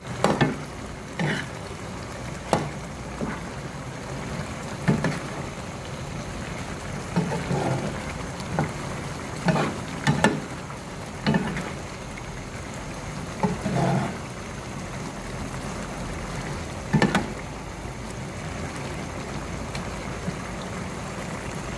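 Squid in a thick sauce simmering in a pan with a steady sizzle, while a metal spatula stirs it and knocks against the pan about a dozen times at irregular intervals, the last about three-quarters of the way through.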